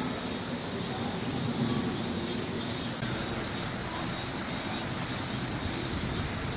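Steady outdoor background noise: an even hiss with a low rumble underneath, holding a constant level with no distinct separate sounds.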